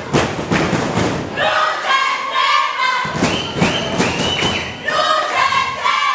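Crowd of wrestling spectators, high children's voices among them, shouting and chanting in bursts. Underneath runs a string of sharp thumps.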